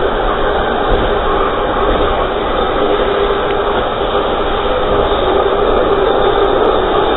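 Steady rushing noise of a train in motion, wind and wheel rumble heard from the rear of the moving train.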